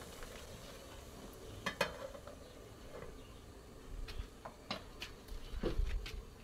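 Scattered clinks and knocks of cooking pots and utensils: a pair just under two seconds in, then a cluster of sharper clicks and low thumps in the last two and a half seconds.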